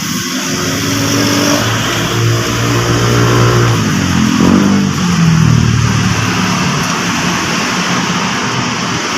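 Engine of a nearby motor vehicle running and revving, its pitch rising and falling several times.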